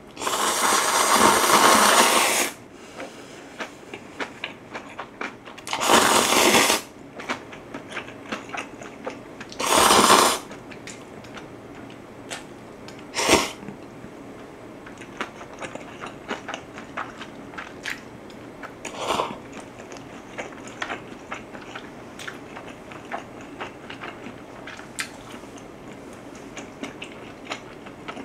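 Instant ramyeon noodles slurped loudly: one long slurp at the start, two more near 6 and 10 seconds, and shorter ones near 13 and 19 seconds. Small wet clicks of chewing fill the gaps between.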